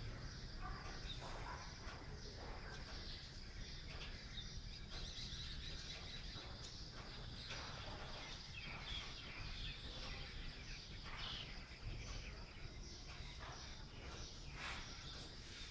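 Dawn ambience: a steady high insect drone with scattered bird chirps over a low, steady background rumble.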